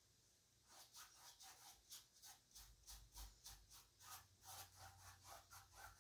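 Paintbrush rubbing white acrylic across a stretched canvas in quick left-and-right strokes, about three a second, starting just under a second in; faint.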